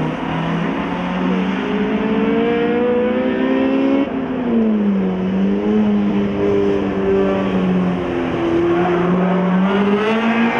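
Small hatchback race car engines running hard on a short oval. The engine pitch climbs steadily, drops sharply about four seconds in, then rises and falls again through the bend.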